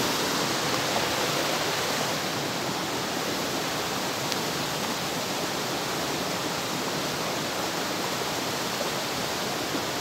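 Rain-swollen hillside stream rushing and splashing down a rocky channel, a steady rushing of fast water.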